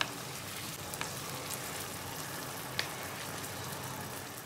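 Chicken pieces sizzling steadily in hot oil in a non-stick karahi while being stirred with a wooden spatula, with a few sharp clicks from the spatula or spattering oil. The sizzle fades out at the very end.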